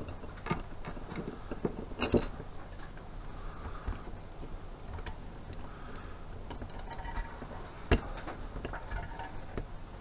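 Small parts of a thermostatic shower mixer tap being handled and fitted: scattered light clicks and knocks of metal and plastic pieces, with two sharper knocks about two seconds in and near the end, over a steady low hum.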